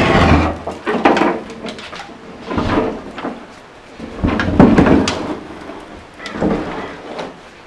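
A removed 1970 Datsun roadster steel door being turned over on a workbench: a series of clunks, knocks and scrapes as it is lifted, flipped and set down, about five separate bursts of handling noise.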